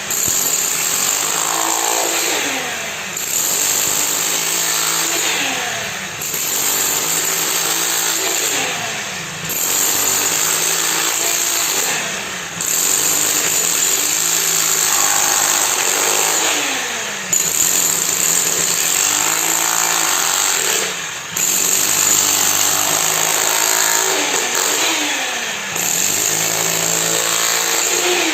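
Engine of a concrete-pouring machine running in a repeating work cycle: every two to four seconds its pitch falls, then recovers, over a steady hiss.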